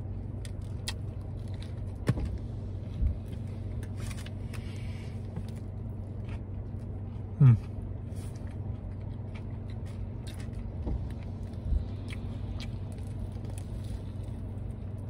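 Chewing and biting into a crispy fried-shrimp po'boy, with scattered crunches and wet mouth clicks. A short falling vocal 'mm' comes about seven and a half seconds in. A steady low hum of the car runs underneath.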